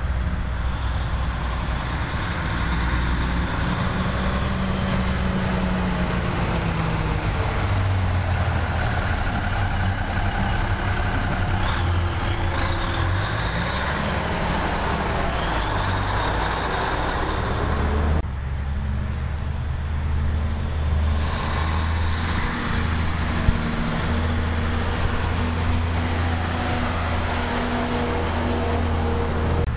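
The diesel engine of an M817 5-ton 6x6 military dump truck, a Cummins inline six, running as the truck drives up close and past. Its pitch rises and falls several times as the engine speeds up and slows.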